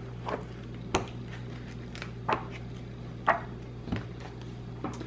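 Pages of a spiral-bound book being flipped and the book handled on a wooden table: half a dozen short page rustles and light knocks, with one sharper tap about a second in.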